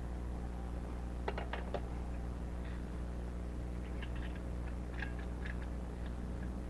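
Caulking gun dispensing sealant: a few short clicks in two small clusters as the trigger is worked, over a steady low hum.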